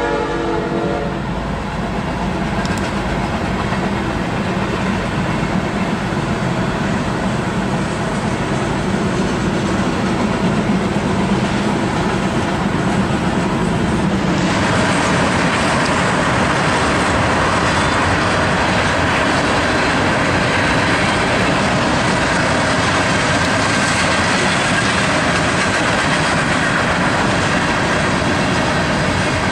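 Diesel-hauled freight train passing: a locomotive horn blast cuts off about a second in, then the steady rumble and rail noise of the train, turning louder and brighter about halfway through.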